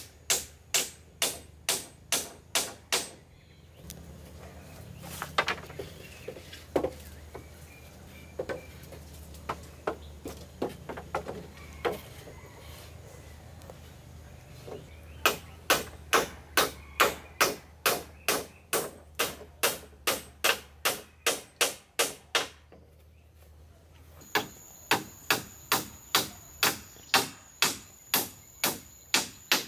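Rapid, regular hammering, about three blows a second. It stops for roughly ten seconds in the middle, where there are only a few scattered knocks, then picks up again.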